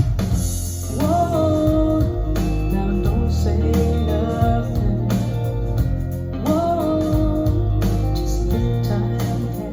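A recorded song with a strong, steady bass line and guitar under a gliding melody, played back through Acoustic Energy Evo 3 bookshelf loudspeakers.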